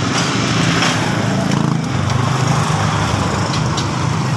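A small engine idling steadily with a low, even drone. A few faint metallic clicks come from a ratchet and socket being fitted onto the motorcycle's oil drain plug.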